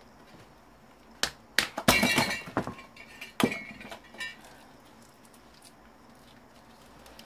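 Hand tools knocking and clinking against metal parts while an old monitor is pried apart: a few sharp knocks, then a second of dense rattling clatter, then two more single knocks.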